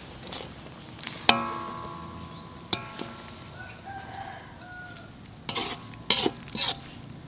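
A metal ladle clanks twice against a large aluminium wok, each strike leaving the pan ringing. Near the end come a few short scrapes of the ladle across the wok as it turns a whole chicken in sauce.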